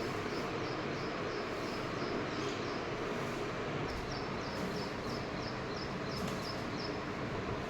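A small animal chirping: short high chirps repeating about three times a second over a steady background hiss.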